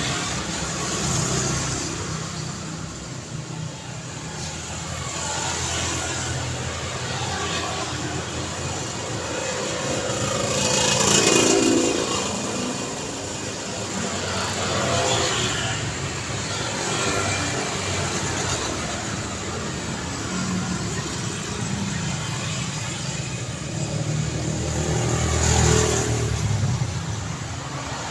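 Continuous road traffic: cars and other vehicles passing one after another, with engine hum and tyre noise rising and falling as each goes by; the loudest pass comes a little before halfway, with another near the end.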